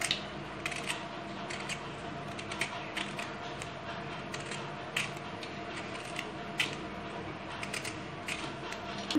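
Hand peeler scraping the skin off a pointed gourd (parwal) in short, irregular strokes, over a steady low hum.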